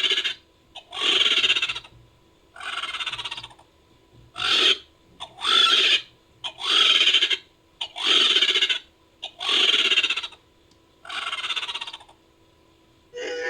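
Designed creature sound effect for the pterosaur Hatzegopteryx: a run of nine short, harsh, hissing calls, each under a second, about every second and a half. Near the end a different call with a clearer pitch begins.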